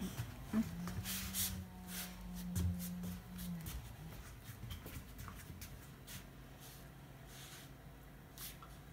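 Soft scuffing and rustling: a Miniature Schnauzer in socks and a knit sweater being handled, then padding and sliding on a wooden floor. A low steady hum runs for about three seconds near the start.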